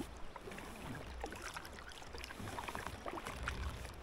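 Kayak paddling on calm water: the double-bladed paddle's blades dipping in and dripping, making many small splashes and trickles, with water lapping along the hull of a Bonafide RVR 119 sit-on-top kayak, over a low rumble.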